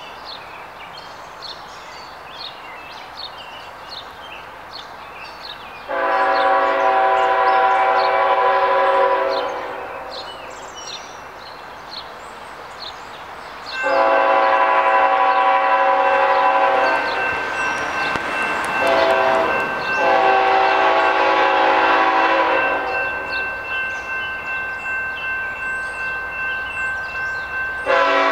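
Horn of Norfolk Southern ET44AC locomotive 3600 sounding from a distance as the train approaches. It sounds a chord of several notes: one long blast about six seconds in, then a longer run from about 14 seconds that breaks briefly twice, and another blast starting at the very end. Birds chirp in the gaps between blasts.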